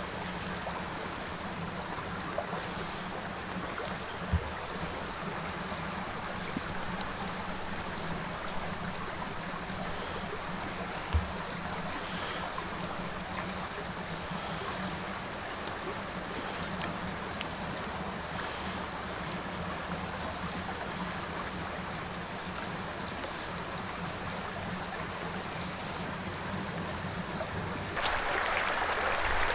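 Stream water running steadily, with two short soft knocks along the way; the rushing gets louder and brighter near the end.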